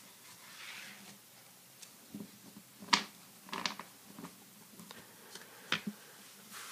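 A stack of 1991-92 Upper Deck basketball cards being handled: squared up on edge and riffled, with soft card-on-card sliding and a handful of sharp taps and clicks, the loudest about three seconds in.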